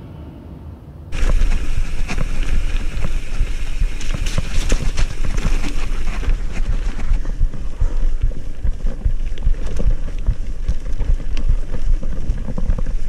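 Mountain bike riding fast down a rough trail, heard from an action camera on the bike. Wind buffets the microphone in a constant low rumble, while the bike and its tyres rattle and clatter over stones in many sharp knocks. It cuts in suddenly about a second in.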